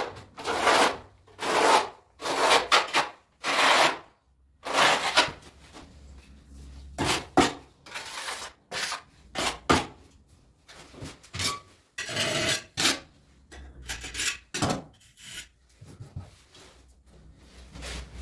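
Steel notched trowel scraping tile adhesive across a concrete wall, combing it into ridges in a series of strokes, about one a second at first and then more irregular.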